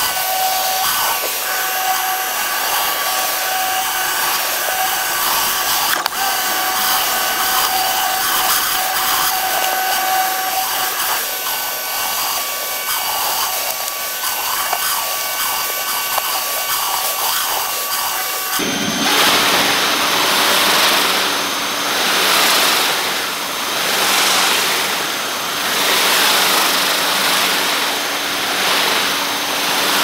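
Pressure washer driving a Ryobi rotary surface cleaner over concrete: a steady rush of spray with a whining motor tone. About two-thirds of the way through the sound turns fuller and louder, swelling and fading every two seconds or so.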